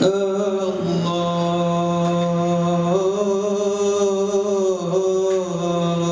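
A young man's solo voice singing an Arabic qasidah through a microphone, unaccompanied, in long drawn-out notes that shift pitch a few times.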